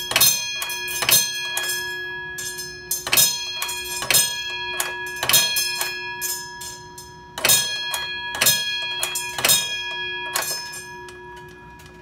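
Antique mechanical fire alarm trip bell, its striker worked by a pulled chain and hitting the metal gong about a dozen times at uneven intervals of roughly a second. Each strike leaves a ringing tone that carries on between strikes and dies away after the last one, near the end.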